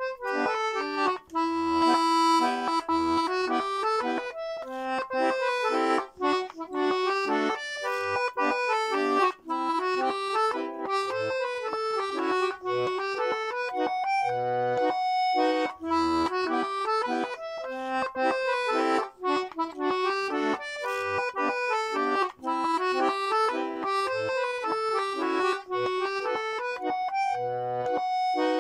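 Castagnari D/G two-row diatonic button accordion (melodeon) playing a tune solo: a continuous run of melody notes over occasional low bass notes.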